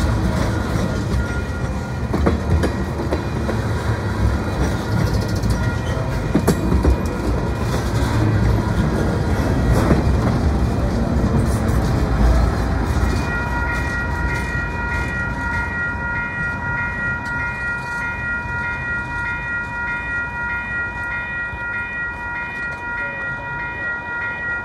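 Freight train cars, tank cars and a boxcar, rolling close past with a rumble and wheels clicking over the rail joints, easing off about halfway through as the last car goes by. Then a grade crossing's warning bell rings in an even, repeated pattern as the train pulls away.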